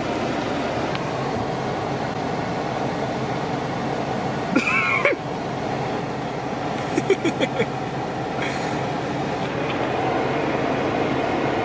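Steady low rumbling background noise, with a brief high-pitched voice-like squeal about five seconds in and a few light clicks later.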